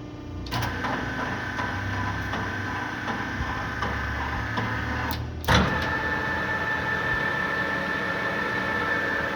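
LeBlond Makino 15" x 50" engine lathe starting up about half a second in and running with a steady whine from its headstock gearing. About five and a half seconds in there is a single sharp clunk, then it runs on steadily.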